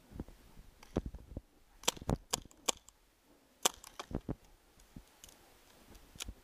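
Paintball fire during play: about eight sharp, separate pops at irregular spacing, the loudest around two seconds in and again near four seconds.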